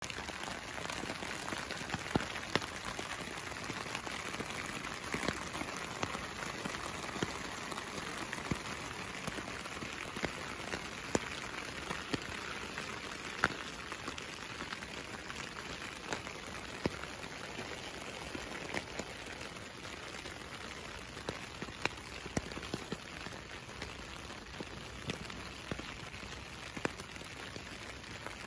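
Rain falling on a hammock's rain tarp, heard from underneath it: a steady patter with frequent sharper single drops striking the fabric, easing slightly in the second half.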